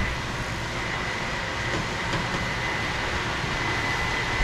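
Whirlpool over-the-range microwave's vent blower fan running steadily, exhausting out of the top vent after being turned for top venting. A steady rushing of air with a faint thin high whine running through it.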